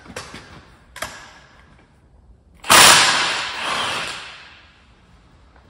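Cordless impact wrench run in a burst of about a second and a half, hammering the bolt on a John Deere tractor's axle loose, after a couple of short knocks of metal parts.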